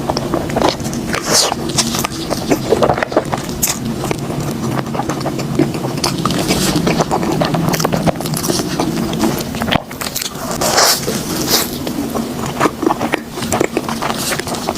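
A person chewing and biting food up close, with many short crackly clicks and mouth sounds, over a steady low hum.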